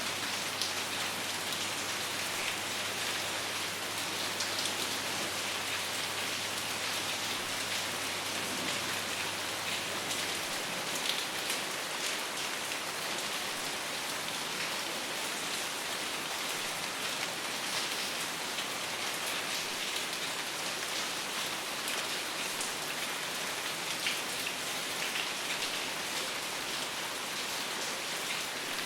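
Steady rain falling, an even hiss with scattered sharper ticks of individual drops.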